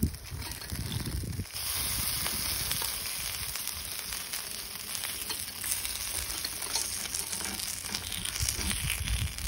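Coconut-rice batter sizzling in the wells of a hot cast-iron khanom krok pan, with light scrapes and clicks of a metal spoon lifting the cakes out. The sizzle gets louder about a second and a half in.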